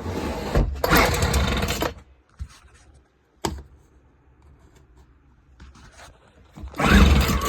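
Craftsman two-stroke leaf blower being pull-started after a carburetor tune-up: two roughly one-second bursts from the recoil-starter pulls in the first two seconds, a sharp click about three and a half seconds in, then the engine catches near the end and keeps running.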